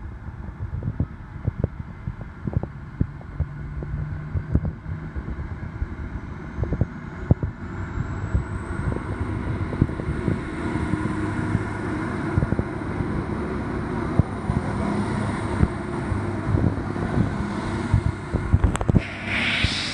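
V/Line VLocity diesel multiple unit accelerating away from the platform and passing close by, its diesel engines running under load. A thin whine rises in pitch during the first half and then holds steady. Wind buffets the microphone with short thumps throughout.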